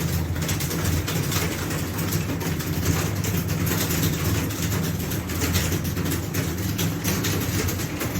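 Many keyboards clattering at once, a dense run of irregular key clicks, over a steady low machine hum.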